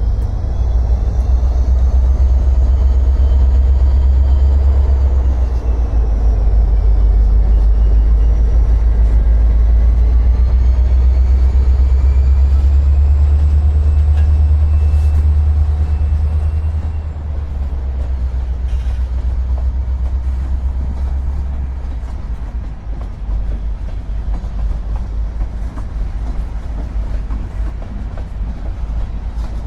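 A train passing close by, a loud low rumble that eases about 17 seconds in, with faint high wavering squeals over it in the first half.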